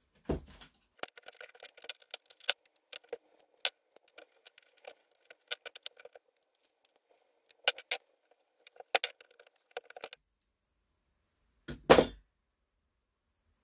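Small hand tools, a screwdriver and then cutters, clicking and scraping on a plastic computer case fan as it is pried apart: a busy run of small clicks and scrapes, then one louder knock near the end.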